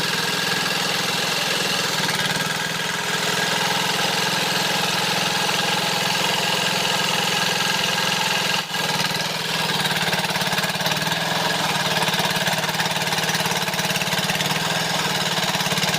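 Motorcycle engine running steadily on a test run just after a new drive chain has been fitted and adjusted, with a brief break about halfway through.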